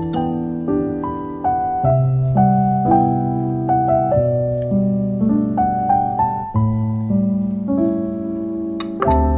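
Background piano music: a slow melody of single notes, each struck and left to ring and fade.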